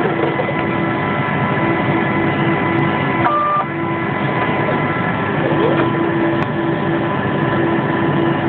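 Steady hum and hiss of running laboratory instruments beside a robotic vial autosampler, with constant tones and a pulsing lower hum. A brief beep sounds about three seconds in.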